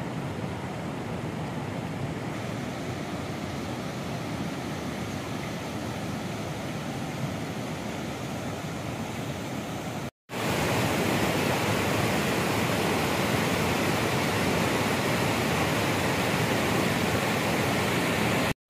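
Steady rush of a flowing mountain river. It drops out briefly about ten seconds in and comes back louder.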